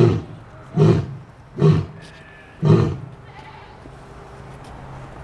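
Lion hacking and retching, four harsh coughing heaves less than a second apart that stop about three seconds in, as it tries to bring up a fur ball stuck in its throat.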